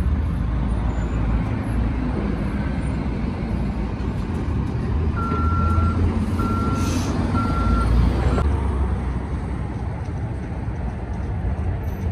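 Backhoe loader's diesel engine running with a steady low rumble, and its reversing alarm beeps three times, about a second apart, near the middle.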